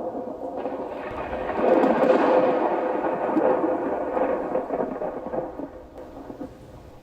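A peal of thunder from a nearby storm, swelling about a second in, loudest around two seconds, then rolling away and fading out near the end.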